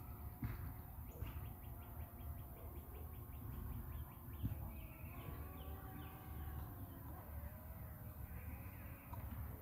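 Faint outdoor ambience: birds calling, with a quick trill of ticks a little over a second in, over a steady low rumble.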